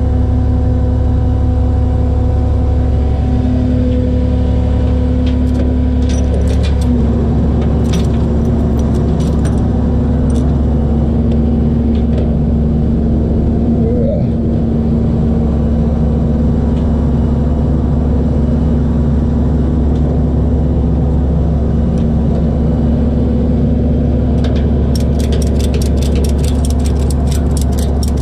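Tow truck's engine running with a steady low hum that shifts pitch a couple of times. A few light clicks come early, and a quick run of light rattling comes near the end.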